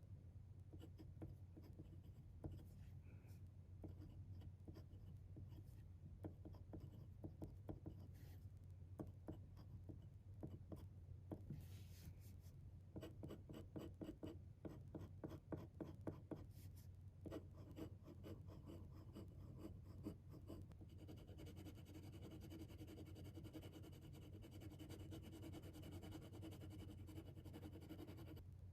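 Faint scratching of a pen on paper in short, irregular strokes as ink is swatched and written out, over a steady low hum. A faint steady whine joins in about two-thirds of the way through.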